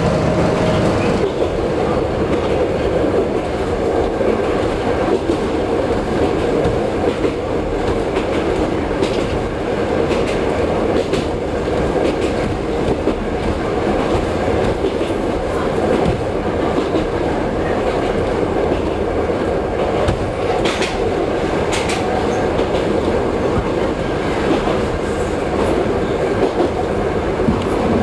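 Diesel railcar running along the line, heard from inside the driver's cab: a steady rumble of engine and wheels on rail, with a few sharp clicks from the wheels about a third of the way in and again near the three-quarter mark.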